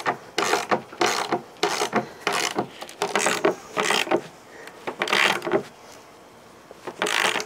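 A 3/4-inch ratchet wrench clicking in repeated short strokes, about three a second, as it tightens nuts down on carriage bolts. The strokes stop about two thirds of the way through, with one more brief burst near the end.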